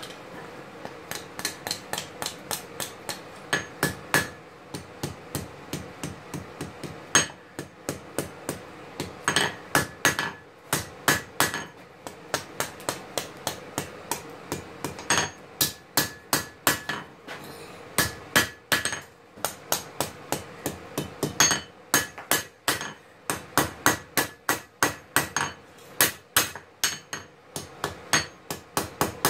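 Ball-peen hammer striking hot steel on an anvil while forging a knife blade, in quick runs of blows separated by short pauses. Each blow rings with a bright metallic ping from the anvil.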